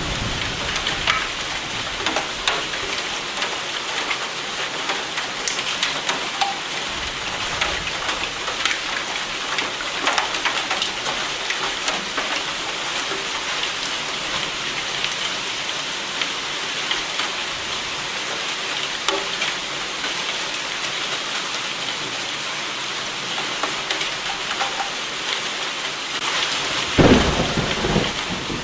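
Steady rain falling, with many distinct drops pattering on a surface, and a sudden short crack of thunder with a low rumble near the end.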